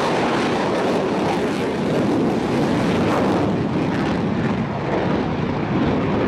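Mitsubishi F-2 fighter's single F110 turbofan in afterburner, a loud, steady jet noise as the jet climbs away; its highest hiss thins out over the last couple of seconds.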